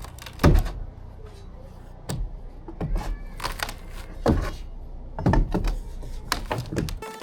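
A series of irregular knocks and thumps, about one every second or so.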